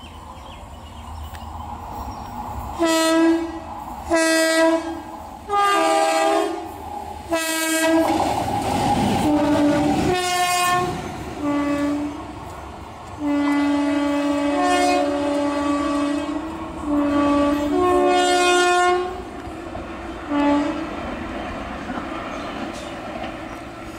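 Air horns of an Indian Railways electric locomotive pair, a WAP7 hauling an old WAP4, sounding a series of blasts: short single blasts in the first half, then longer two-tone chords, including one held for about three seconds. A loud rumble and wheel clatter of the locomotives passing comes about eight to ten seconds in.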